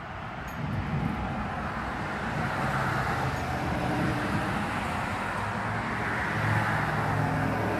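A car passing on the street: steady engine and tyre noise that swells about a second in and holds, with a low engine hum in the second half.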